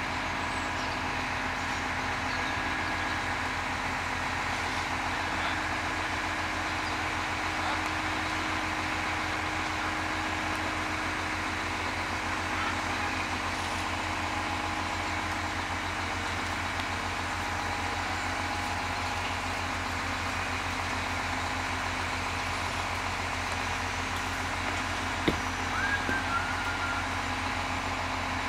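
Mobile crane's diesel engine running steadily under the load of a static caravan on its hook. A single sharp knock comes near the end.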